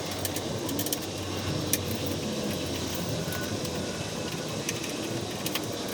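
Steady machine-like background noise with a few light clicks scattered through it, as of small parts being handled.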